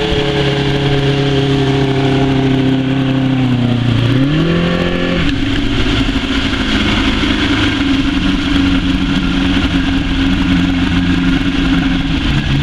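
Motorboat engine running at speed, with wind and water rushing past. About four seconds in the engine revs up sharply, then falls back to a lower, steady note.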